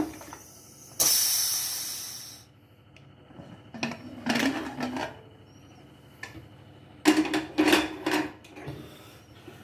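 Pressure cooker being opened: a sudden hiss of leftover steam escaping about a second in, dying away after a second and a half, then scrapes and metallic clanks as the lid is worked loose and lifted off.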